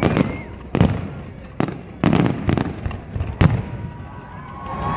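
Aerial fireworks shells bursting overhead: a quick, uneven run of sharp bangs, about six in five seconds, each trailing off briefly.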